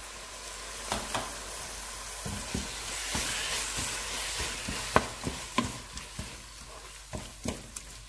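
Chopped canned tomatoes sizzling as they fry in a pan of onions and spice paste, while a wooden spatula stirs them in, knocking and scraping against the pan a few times.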